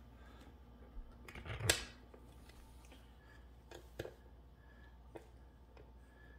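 A few light clicks and knocks from chair parts and hardware being handled during assembly. The loudest is a short scrape about a second and a half in.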